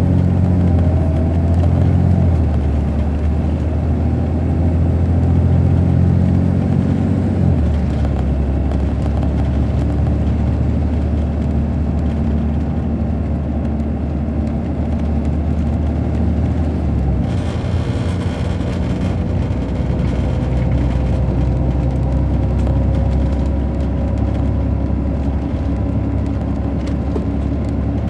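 The Caterpillar C13 ACERT diesel engine of a 2006 MCI D4500CL coach, heard from on board while the bus is driving. The engine note changes pitch a few times, about 2, 7 and 17 seconds in, as it moves through the Allison B500 automatic transmission's gears. A faint whine rises slowly over the second half, and a short hiss comes about 17 seconds in.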